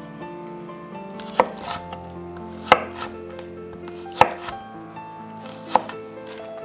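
A chef's knife chopping garlic cloves on a wooden cutting board: four sharp knocks, about a second and a half apart.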